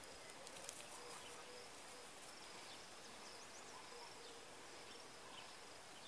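Faint outdoor ambience: a steady hiss with a few faint, short high chirps, and light clicks just under a second in.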